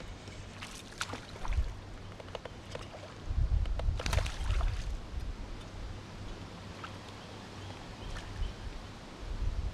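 Light clicks and knocks of gear handled in a kayak over a low rumble of wind on the microphone, most of the clicks in the first half.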